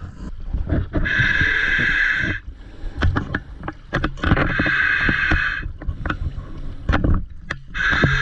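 Scuba regulator hissing as the diver breathes in, three breaths about three seconds apart, with short knocks between them.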